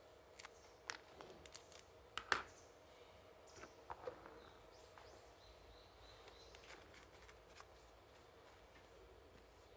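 A handful of small sharp clicks and taps from small plastic and metal parts handled by hand, the loudest a little over two seconds in. After about four seconds, near silence with faint room tone.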